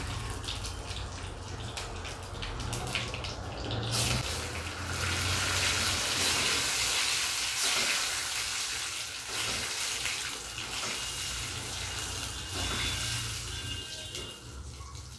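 Tempering sizzling in hot oil in a small kadai: mustard seeds, cumin, chana and urad dal, curry leaves and two dried red chillies frying while a spoon stirs them. The sizzle swells about four seconds in and eases off toward the end.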